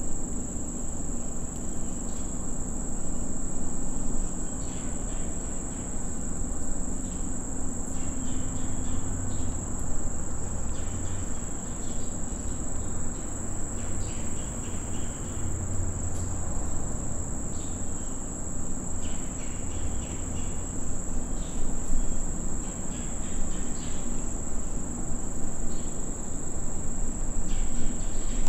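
Insect chorus: a steady high-pitched drone with short chirps flickering through it, over a low steady rumble.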